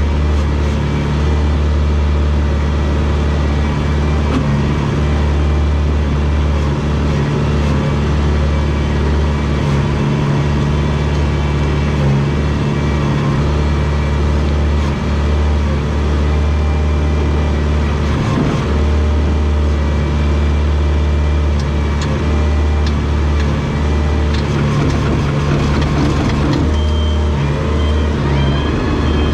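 Diesel engine of a rubber-tracked Komatsu DP21 bulldozer running steadily under load as it pushes fill, with a deep hum that eases off briefly now and then. Near the end a high, evenly repeated beeping sets in.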